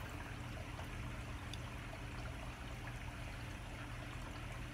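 Steady background noise: a low hum under a faint even hiss, with no distinct events.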